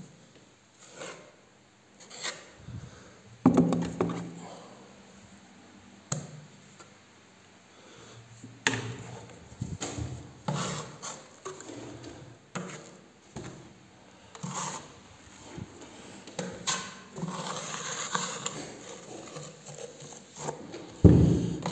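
Steel spatula spreading and scraping gypsum plaster across a wall in irregular strokes, with a few louder knocks, the loudest near the end.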